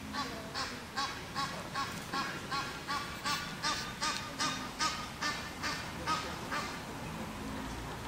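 Egyptian goose giving a rapid series of harsh honks, about two and a half a second for some six seconds, swelling and then fading.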